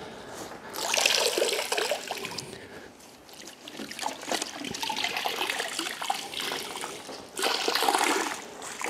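Chenille wash mitt sloshed in a bucket of no-rinse wash solution, then squeezed out near the end, water streaming and splashing back into the bucket. The loudest splashing comes about a second in and again as the mitt is wrung out.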